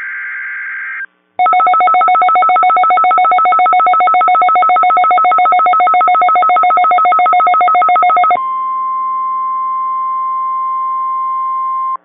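NOAA Weather Radio Emergency Alert System tones opening a test tornado warning. The tail of a buzzy SAME digital header burst comes first, then after a short gap a loud, harsh alert tone pulses rapidly for about seven seconds. A steady single-pitched tone, the weather radio's 1050 Hz warning alarm, follows for the last few seconds.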